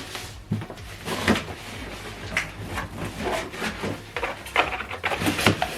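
Handling noise from unpacking: an irregular string of knocks, bumps and short scrapes as packed items are moved about.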